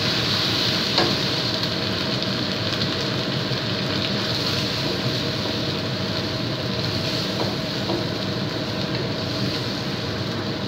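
Chicken curry with freshly added coconut milk sizzling and simmering in a wok, stirred with a wooden spatula, with a short knock of the spatula on the pan about a second in.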